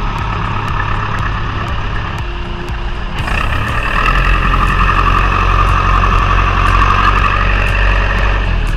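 A motor vehicle's engine running steadily, growing louder about three seconds in.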